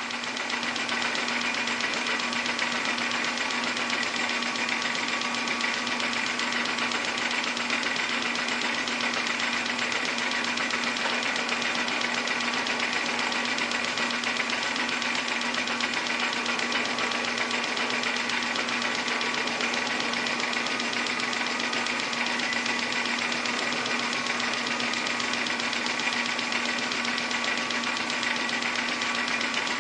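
Metal lathe running steadily, turning down a piece of rod held in an R8 collet. The motor and drive make a constant hum with a steady low tone.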